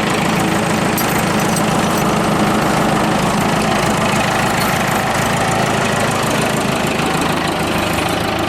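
Tractor engine idling steadily with an even knock, warming up.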